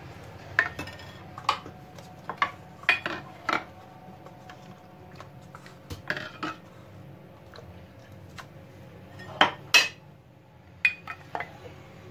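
Stainless steel ladle clinking and scraping against a bowl while watermelon juice is scooped out and poured into paper cups: about a dozen separate sharp clinks, the two loudest close together about three-quarters of the way through.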